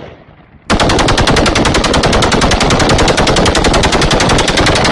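Automatic gunfire: the tail of one burst at the very start, then, just under a second in, a single long burst of rapid shots, about ten a second, that runs for about four seconds before stopping.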